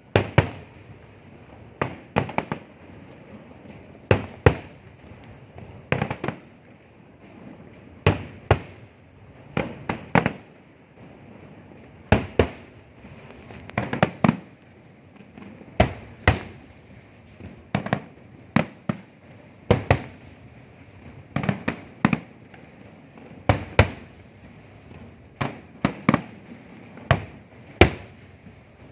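Fireworks going off in a steady series of sharp bangs, one every second or two, often two or three in quick succession.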